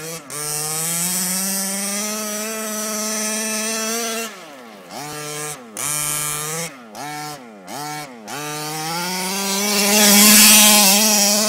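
Two-stroke petrol engine of a ROVAN 1/5-scale RC car running at high revs. It drops off about four seconds in, is revved in several short blips, then is held at full throttle again. It is loudest near the end as the car passes close.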